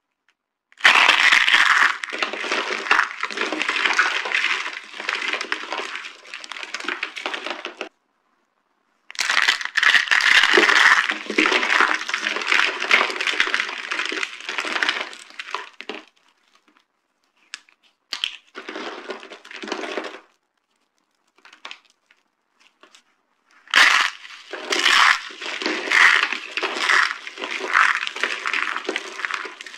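Dry soap heart boxes being crushed, crunching and crumbling in dense crackles. There are three long bouts of crunching, with short pauses between them and a few scattered crackles before the last bout.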